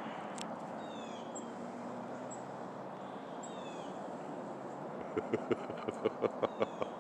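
Small songbirds calling at a winter feeding tree, with short falling chirps over a steady outdoor hiss. Near the end comes a quick run of about nine sharp taps in a second and a half.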